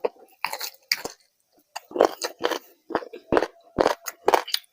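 A person chewing food close to the microphone: an irregular run of short, sharp crunches, about two or three a second.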